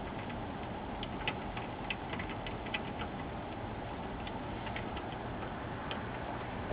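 Light, irregular clicks and ticks of a hand screwdriver driving small screws into the metal rear chassis beside an LCD monitor's VGA and power connectors.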